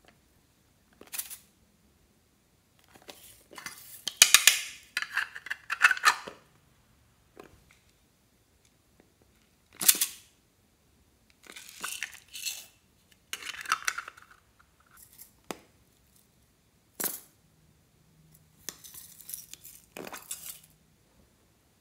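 Small plastic cases and their loose sequins and glitter being handled, opened and poured into a glass baking dish of slime. The sound comes as a series of short bursts of clicking, clinking and rattling, the longest and loudest about four to six seconds in.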